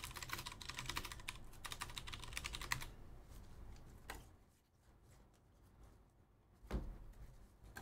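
Rapid typing on a computer keyboard, a quick run of key clicks for about three seconds that then stops, followed by a single key tap and a louder knock near the end.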